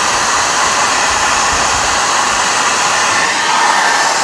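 Hair dryer running on its first setting, blowing cold air at high airflow: a loud, steady rush of air.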